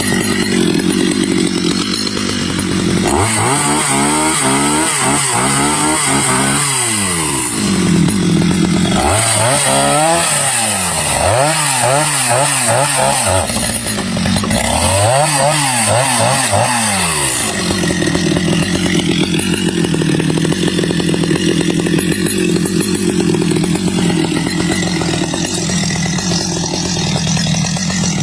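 Stihl chainsaw running loud, mostly at a steady high speed. It has three spells of a few seconds each in which the engine speed swings repeatedly up and down.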